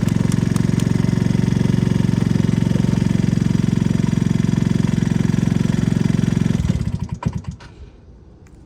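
Talon GSX150's small engine idling steadily, then cutting out about two-thirds of the way through and dying away in a few uneven beats. It is being shut down, with a kill switch that the owner finds not fully dependable.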